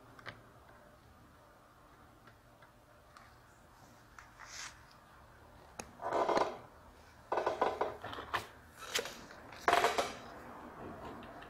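Workbench handling during soldering work: a few quiet seconds, then a string of short clatters and scrapes from about halfway in as the soldering iron and small parts are moved about.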